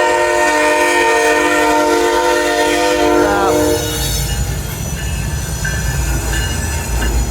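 Diesel locomotive air horn sounding one long blast of several tones held together, which ends with a slight drop in pitch after about four seconds, warning at a road crossing. A low, heavy rumble from the passing coal train's locomotives follows.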